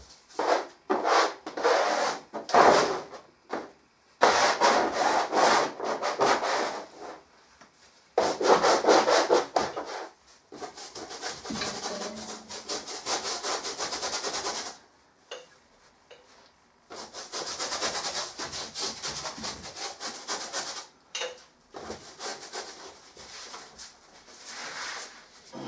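A hand rubbing and scrubbing paint over a large canvas: short irregular strokes at first, then two longer, steadier stretches of scrubbing a few seconds each.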